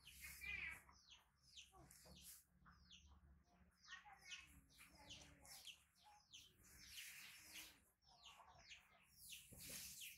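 Faint high-pitched chirps: many short calls, each falling quickly in pitch, repeating in quick succession.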